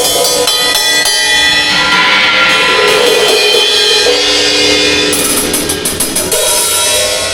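A band's instruments playing at a sound check: held, sustained chords, with a drum kit's cymbals washing in about five seconds in.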